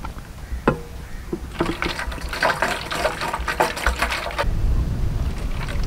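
Hydrogen peroxide pouring from a bottle into a large, empty plastic water can, splashing and gurgling as it fills, beginning after a click about a second in.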